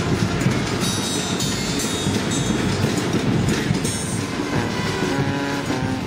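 Street brass band playing: drums beating busily under brass, with held horn notes coming through in the last second or two.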